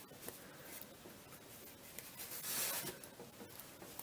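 White wool yarn being wound by hand around a plastic pompom template: faint rubbing and swishing of the threads drawn over the disc, a little louder about two and a half seconds in.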